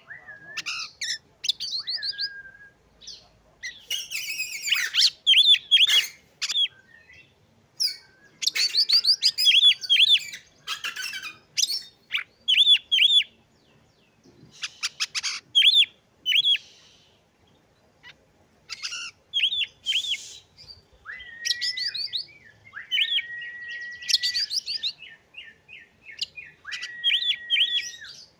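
Oriental magpie-robin singing: loud phrases of quick chirps and trills with short pauses between them, turning in the second half to long, level whistled notes laced with chirps.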